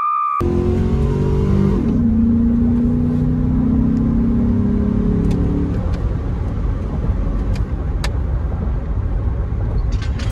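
GMC Denali's 5.3-litre V8 under way on a test drive after an oil change: the engine note drops in pitch about two seconds in, as with a gear change, holds steady, then fades into an even road and wind rush about six seconds in. A high steady whine cuts off just after the start.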